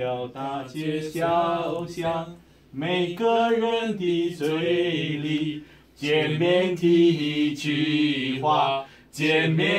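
A man singing unaccompanied in long held notes, in phrases of about three seconds with short breaks between them.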